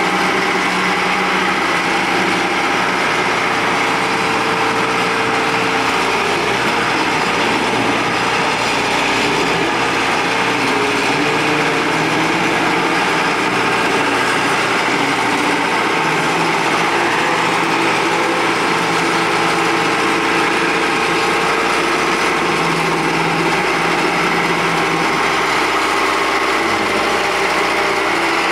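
An engine running steadily at a constant speed, with a slight drift in pitch.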